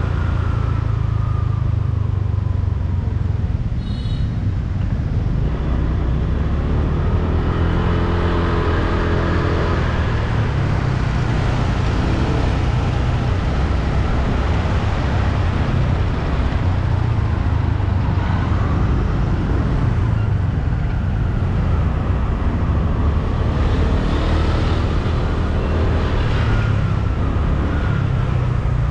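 A motorbike riding through city traffic: its engine's pitch rises and falls several times as it speeds up and slows, over a steady low rumble, with other cars and motorbikes around it.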